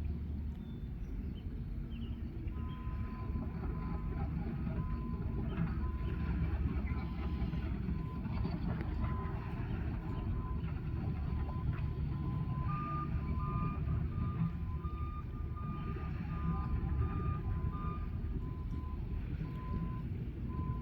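Vehicle reversing alarms beeping in a repeating pattern over a steady low rumble. A second, slightly higher beeper joins about halfway through and stops a few seconds later.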